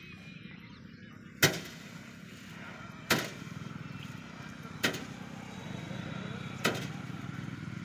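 Bundles of rice stalks beaten by hand against a drum to thresh out the grain: four sharp thuds at an even pace, one every second and a half to two seconds, over a steady low background noise.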